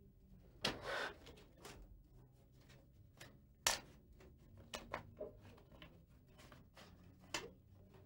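A small folded paper packet being unfolded by hand: short crinkles and crackles of paper, the loudest about a second in and again just before four seconds, with a few softer ones after.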